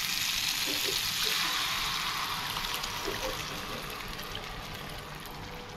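Watery potato-and-dal mixture poured from a bowl into a karahi of fried spice paste, a steady splashing rush that gradually fades as the pour goes on.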